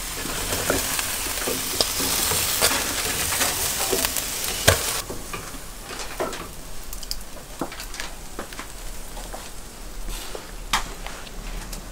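Skewered meat sizzling and crackling over hot charcoal, with clicks of steel skewers being handled and one sharp click near the end of it. About five seconds in the sizzle stops abruptly, leaving quieter scattered clicks and knocks.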